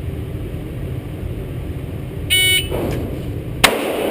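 A Pocket Pro II shot timer sounds one short beep, and about a second and a quarter later a Glock 17C 9mm pistol fires a single shot, the loudest sound, with a ring-out after it.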